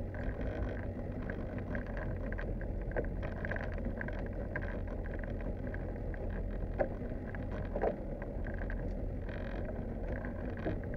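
Sounds of a small open boat on the sea: a steady low rumble with water lapping against the hull and a few short knocks.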